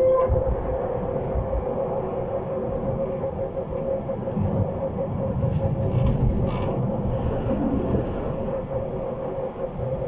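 Electric tram running at a steady speed, heard from inside the car: a steady whine from the traction motors over the rumble of wheels on the rails.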